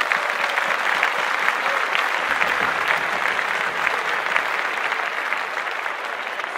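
Crowd applause: dense, steady clapping from many hands, easing off slightly near the end.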